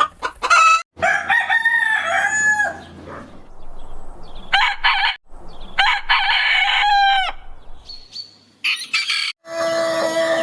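Roosters crowing: a quick run of clucks at the start, then two long cock-a-doodle-doo crows of about two seconds each, with shorter calls between, cut abruptly from one clip to the next. Near the end a steady sound of several held tones comes in.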